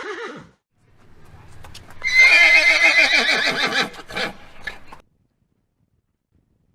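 Horse whinnying. The end of one whinny falls away at the start. After a low rumble, a loud, quavering whinny of about two seconds falls in pitch and trails off in two short sounds.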